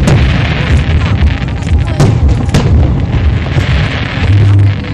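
Aerial fireworks going off: deep booms and sharp reports at the start and twice about two seconds in, over a constant low rumble and crackle. A brief low steady drone near the end.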